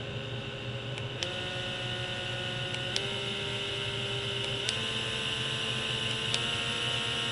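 Handheld blackhead remover vacuum (pore cleanser) running: a steady small-motor hum and whine with hiss. Four times a click is heard and the motor's pitch steps to a new level, as its button switches the suction setting.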